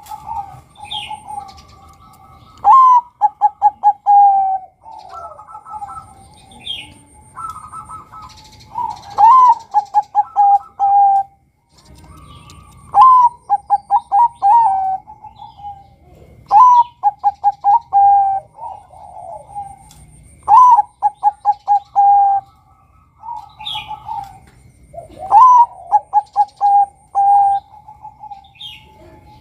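Bangkok-type perkutut (zebra dove) singing its cooing song. Phrases repeat every three to four seconds, each a rising note, then a quick run of short clipped coos, then a longer held note.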